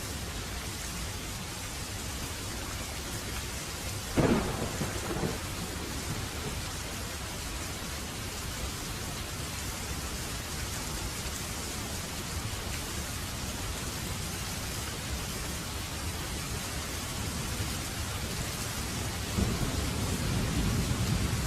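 Steady rain falling, with a sudden thunder clap about four seconds in that dies away over a second, and thunder rumbling again near the end.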